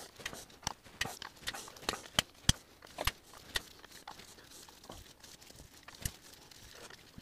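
Irregular small metallic clicks and clinks of bolts and a hand tool being worked loose and handled at a motorcycle engine's clutch cover, most of them in the first four seconds.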